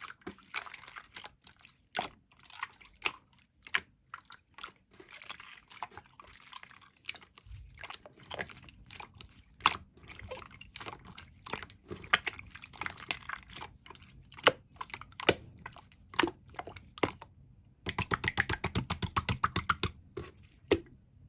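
Green slime being squished and pressed by hand, giving sharp popping clicks from trapped air over a soft crackle. Near the end comes a fast run of clicks, about ten a second, for about two seconds.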